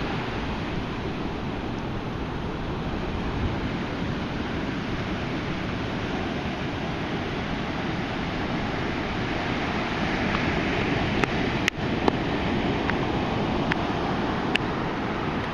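Ocean surf breaking and washing steadily on the beach. A few sharp clicks come in the last few seconds.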